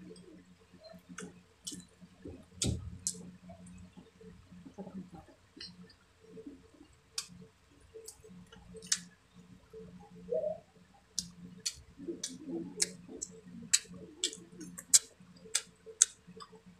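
Close-up eating sounds from chewing grilled fish and rice eaten by hand: wet lip smacks and mouth clicks, sparse at first and coming about twice a second in the second half, over a faint steady low hum.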